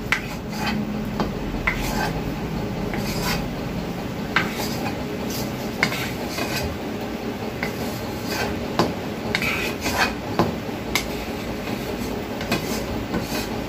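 A spatula scraping round the inside of a kadai (wok), pushing the last of the curry masala out into a steel bowl: irregular scrapes with scattered sharp clinks of the spatula against the pan.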